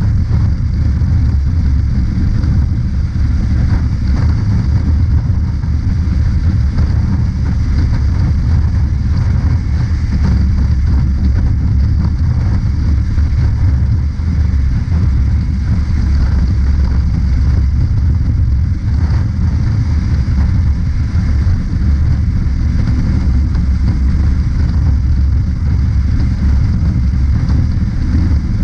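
Honda CB500X motorcycle's parallel-twin engine running at a steady cruising speed: an even low rumble with road noise.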